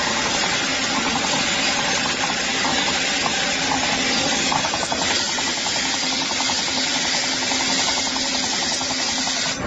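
Tyre-processing machine running steadily, a loud continuous mechanical noise with a fast, even clatter.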